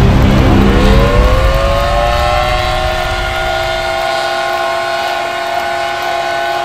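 A horn blaring one long, steady chord that slides up in pitch over its first second or two, over loud cheering that fades by about four seconds in.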